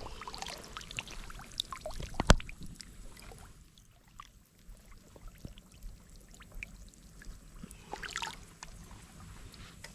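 Pond water splashing and trickling around someone wading out, with scattered small splashes and one sharp knock about two seconds in.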